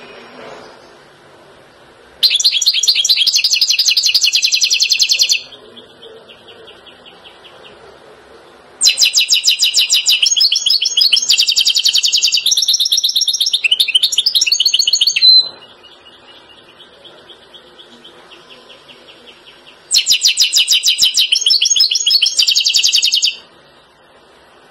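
European goldfinch singing: three loud bouts of fast twittering song with trills, about three, six and three seconds long. Soft, quieter twitters come in between the bouts.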